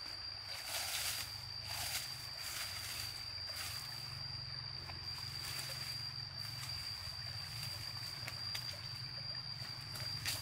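Outdoor ambience: a steady high-pitched tone over a low hum, with scattered soft rustling sounds.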